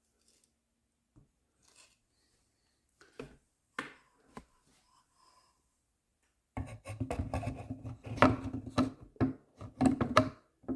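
Hands working small Phillips head screws through metal brackets into a wooden cuckoo clock case: scattered light clicks and taps, then a few seconds of dense clicking, rattling and scraping in the second half.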